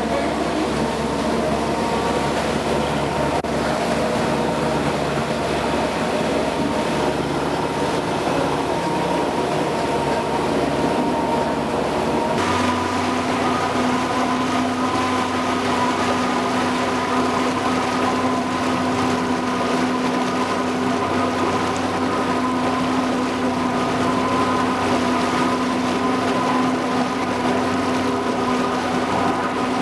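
Motorboat engine running steadily under way. About twelve seconds in the sound changes abruptly from a deeper rumble to a steadier, higher-pitched hum.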